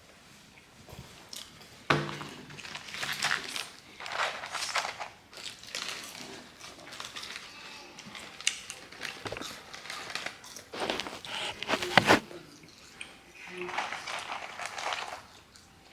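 Objects being handled: a sharp knock about two seconds in, then rustling and clinking as things are moved and set down, with a few more sharp knocks near the end.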